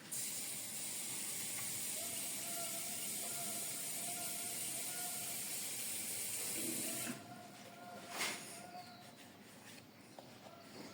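Water running steadily into the water tank of a Philips Senseo coffee maker. It stops abruptly about seven seconds in, and a short knock or rustle follows about a second later.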